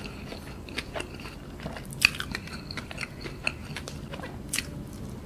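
Close-up chewing of a crispy fried-chicken zinger burger: wet mouth sounds broken by scattered crunches of the fried coating, the loudest about two seconds in.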